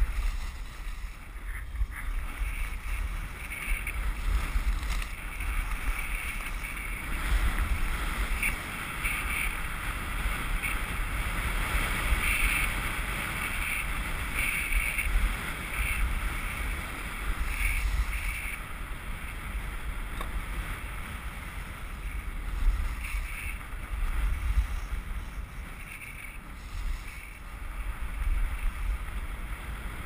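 Wind buffeting the microphone during a downhill run, with a steady hiss and scrape of edges sliding over groomed, packed snow that swells and fades with the turns.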